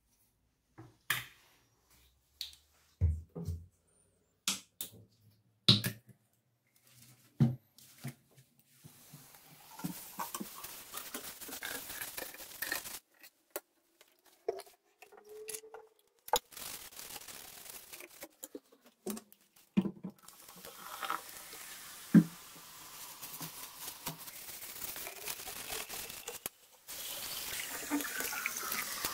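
Sharp knocks and clicks of hands handling things at a ceramic sink, then water running into the basin and down the drain, loudest near the end as a hand rinses the sink.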